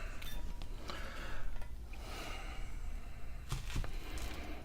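Faint handling noise: a few light clicks and soft rustling as the bipod and rifle upper are moved on the bench.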